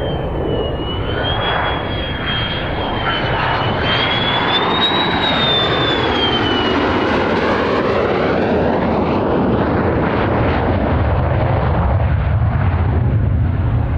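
F-16C fighter jet engine running on final approach, a rushing roar with a high whine that rises and then falls away as the jet passes close by. A deep rumble builds near the end as it comes down to the runway.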